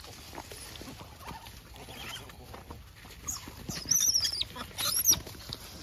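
Gray langurs squealing: two spells of high, wavering cries from about three seconds in, the sound of troop members squabbling over food. Faint rustling and scuffling on dry ground runs beneath.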